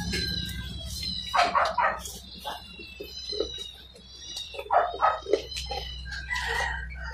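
A dog barking in several short barks, in small groups, with high repeated bird chirps behind it.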